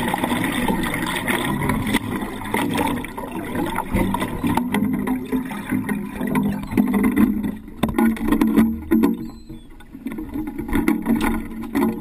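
Water rushing and splashing against the hull and a GoPro's waterproof dive housing at the waterline of a small boat under way, coming in uneven surges and dulled by the sealed housing.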